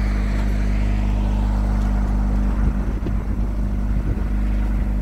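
Blackpool boat tram running at speed, heard from on board: a steady low electrical hum under rushing wind and track noise.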